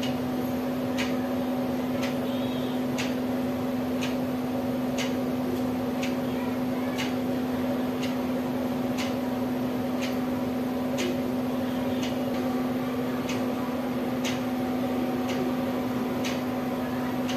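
Sharp ticks, evenly spaced about once a second, over a steady electrical hum.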